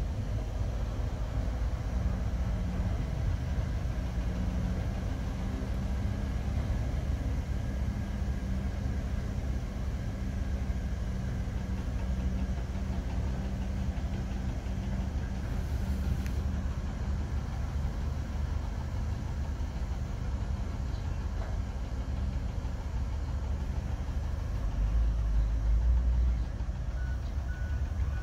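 Heavy diesel engines running steadily: a Cat 320 excavator and a dump truck pulling away. The engine sound swells for a second or two a few seconds before the end, and a reversing alarm starts beeping near the end.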